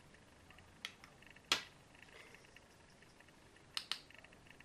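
A few light clicks and taps as makeup brushes and an eyeshadow palette are handled: a faint click about a second in, a sharper tap a moment later, and two quick clicks near the end.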